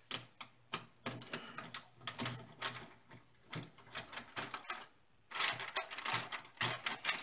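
Irregular clicks, taps and rattles of hard plastic as hands and a screwdriver work inside a 1990s Panasonic clock radio's plastic front housing, prying at its control pieces. The clicking breaks off briefly about five seconds in, then picks up again.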